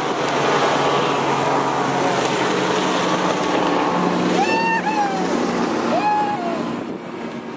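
Outboard motors of several bass boats running at high speed as the boats race past, with the rushing hiss of their spray and wakes. Two short, high whoops come about halfway through, and the motor noise fades near the end.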